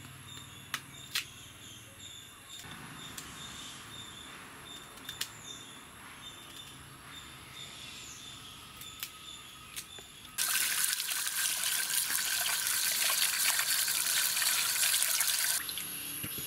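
Running water splashing loudly for about five seconds, starting and stopping abruptly, while peeled cassava is washed in a steel basin of water. Before that there is only faint background with a few sharp clicks.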